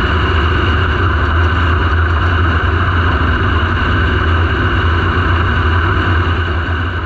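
Dirt Super Late Model race car's V8 engine running steadily at low speed, heard from inside the cockpit, with a strong deep low hum and no revving.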